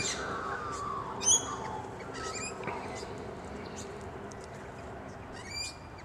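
Several short, harsh squawking calls from red wattlebirds and rainbow lorikeets squabbling in a flowering tree, spaced a second or more apart.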